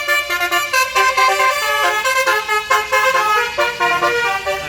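Bus telolet horn with several trumpets playing a rapid 'basuri' melody: a quick run of short horn notes stepping up and down in pitch, often more than one note sounding at once.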